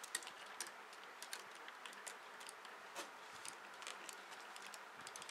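Light, irregular plastic clicks and taps as hands adjust the limbs and joints of a Transformers Dark of the Moon Leader Class Sentinel Prime action figure, setting its pose so it will stand balanced.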